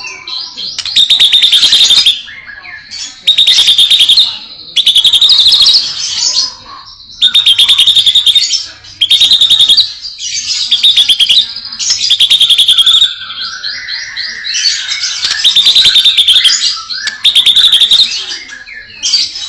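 White-rumped shama singing loudly in a string of about nine rapid trilling phrases, each about a second long with short pauses between them.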